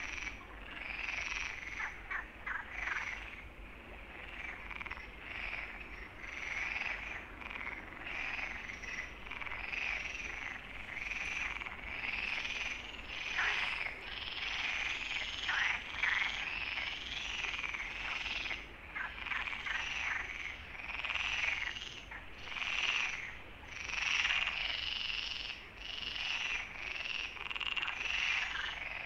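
A chorus of frogs calling, overlapping croaks repeating roughly once a second.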